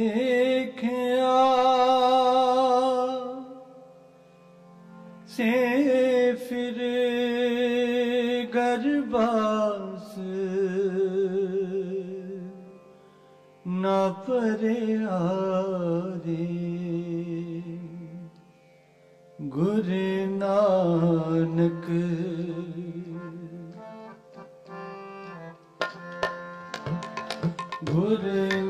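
Sikh kirtan: long, wavering sung notes held in phrases over harmonium, with tabla strokes coming in near the end.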